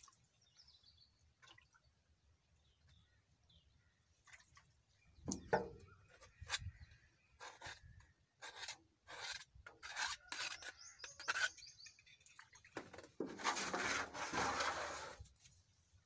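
Ladle and scraper scraping thick, sticky palm-jaggery syrup off the sides of a large metal pan. From about five seconds in there is a run of short scrapes about a second apart, then a longer, louder scrape of about two seconds near the end.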